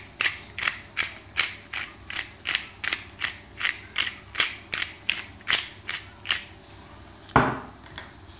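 Hand-twisted black pepper grinder grinding, its mechanism clicking about two and a half times a second for some six seconds. Near the end comes one louder knock as the grinder is set down on the wooden table.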